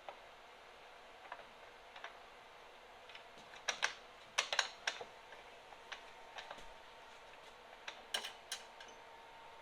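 Light, irregular metal clicks and clinks of tools and small hardware as a nut is put back onto the snowblower's chute linkage, with a cluster of sharper clicks about four seconds in and another pair near the end.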